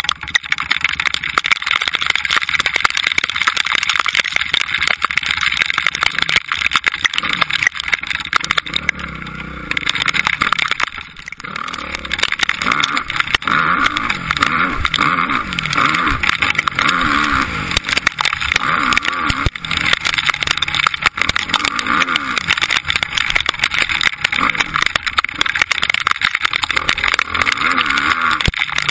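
Motocross bike engine heard from on board while riding, its pitch rising and falling repeatedly through the throttle, under a steady rush of wind noise. It eases off briefly about ten seconds in, then revs hard again.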